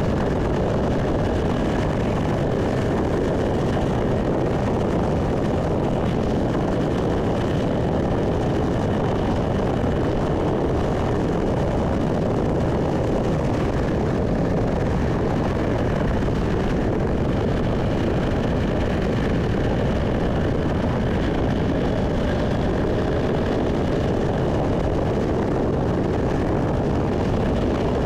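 Steady, unbroken drone of a vehicle driving: engine and road noise at an even level.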